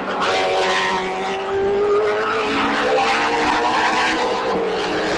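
Several Formula 3000 cars' 3-litre V8 racing engines running at high revs on track, their overlapping pitches sliding up and down as they pass.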